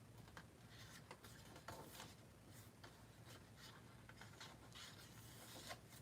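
Faint rustling and a few soft taps of paper pages being leafed through in a planner.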